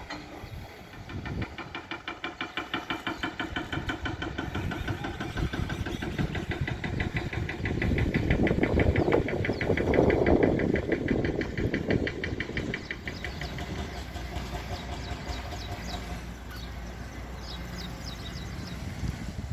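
An engine running with a fast, regular thudding beat that swells louder around the middle, then fades to a weaker steady running.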